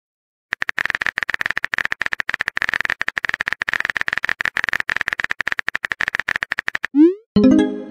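Phone keyboard typing sound effect: rapid, even key clicks as a text message is typed. Near the end there is a short rising swoosh and a chime as the message is sent.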